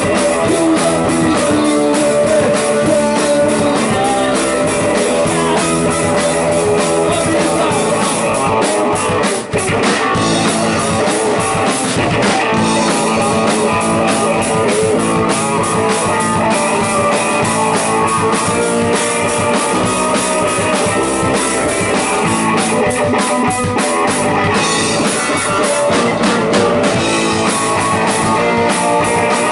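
Rock band music with electric guitar and a drum kit playing steadily, with one brief drop in level about nine and a half seconds in.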